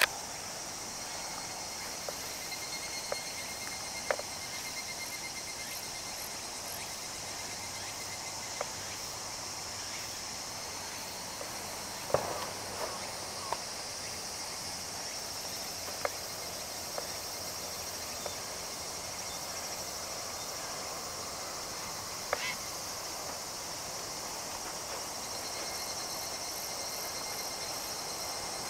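Insects chirring steadily, several high trills overlapping, with a few brief clicks and knocks, the loudest about twelve seconds in.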